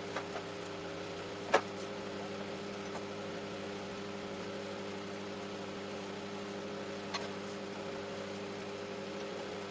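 A steady low mechanical hum with a sharp knock about one and a half seconds in and a few fainter clicks.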